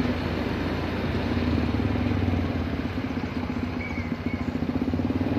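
Vehicle engine running steadily on the move along a road, with a fast even throb.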